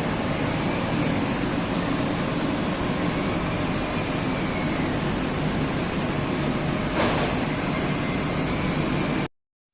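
Steady machine noise from factory machinery, with one brief louder knock about seven seconds in; it cuts off abruptly shortly before the end.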